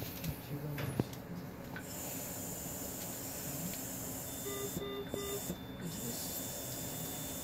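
Steady hiss of hospital equipment with soft rustling of surgical drapes being handled. About halfway through, a medical monitor gives three short beeps, followed by a thin high tone lasting a few seconds.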